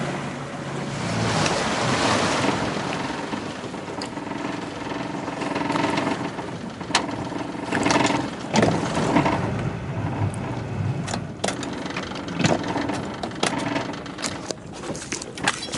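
A small motorboat's engine running under way, with water rushing and splashing along the hull and a few sharp knocks.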